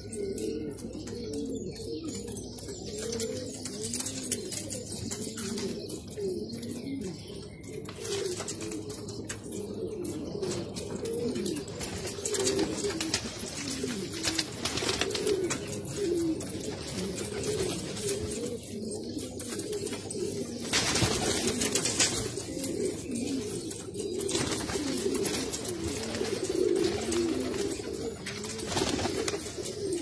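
Several domestic pigeons cooing together in a loft, their low, rolling coos overlapping continuously. A brief noise stands out about two-thirds of the way through.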